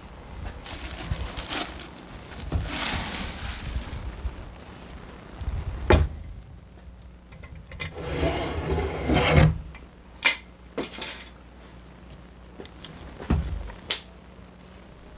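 Hands opening a pressure pot: rustling and scraping as the wing-nut clamps and lid are worked, and the crinkle of a plastic bag liner as a bucket of cured resin is lifted out, with a few sharp knocks of metal and plastic along the way.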